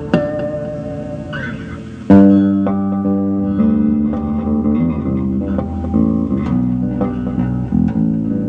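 Solo electric bass guitar: a plucked note rings and fades, then about two seconds in a loud chord is struck and held, followed by a slow line of sustained chords and notes.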